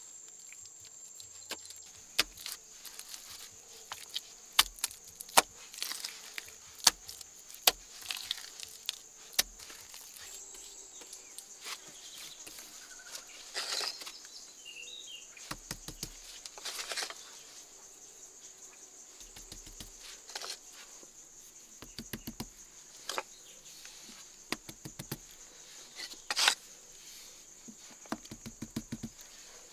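Steady high-pitched insect drone, with sharp scattered clicks and taps and soft pats from hands working wet mud plaster and pressing broken tile pieces into it. In the second half some of the taps come in quick runs of light ticks.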